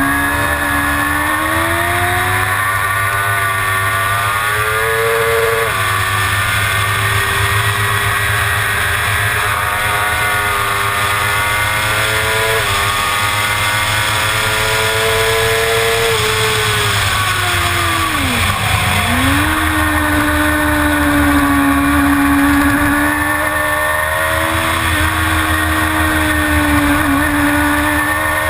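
Suzuki GSX-R750 inline-four racing engine heard from on board, revving hard and climbing through the gears, with sudden pitch drops at upshifts about six and twelve seconds in. Past the middle the revs fall away steeply and pick up again, as when braking into a corner and accelerating out, with wind noise throughout.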